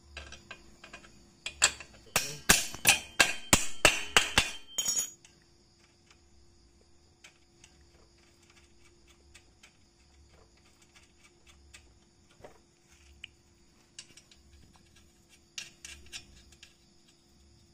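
Steel bolt, nut and hand tools clinking and knocking against the motorcycle's rear shock mount and frame as the shock absorber's bolts are fitted. About a dozen sharp metal clinks come in quick succession a couple of seconds in, then faint ticks, and a few more clinks near the end.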